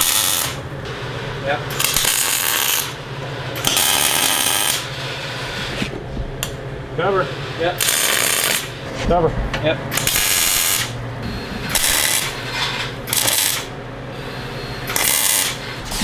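MIG welder arc crackling on the mini bike's steel tube frame, in short bursts of about half a second to a second as the trigger is pulled, repeated about eight times with short pauses between welds.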